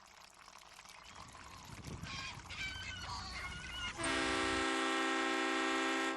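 Harbour ambience: a wash of water noise fading in, seagulls calling about two seconds in, then a boat horn sounding one long, steady blast from about four seconds in, the loudest sound.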